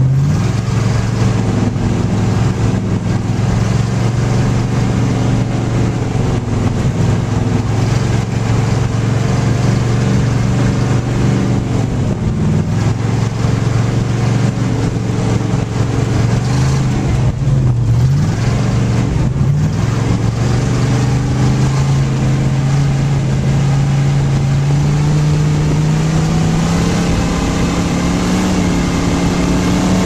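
Dirt-track race car's engine heard from inside the cockpit, running steadily at an easy pace on laps without racing. Its pitch dips briefly a few times midway, then climbs slowly over the last third.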